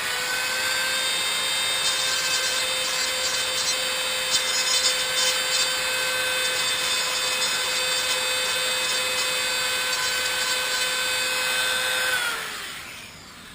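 Dremel rotary tool running at a steady high whine while cutting off the small tabs holding a slot car's headlight housing. About twelve seconds in it is switched off and winds down, its pitch falling.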